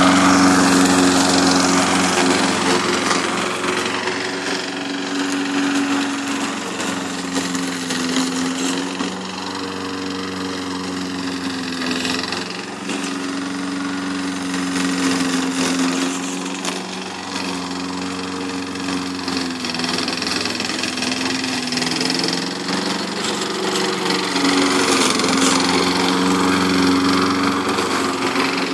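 Walk-behind rotary lawn mower's small single-cylinder petrol engine running steadily while the mower is pushed across grass. Its pitch dips briefly a few times.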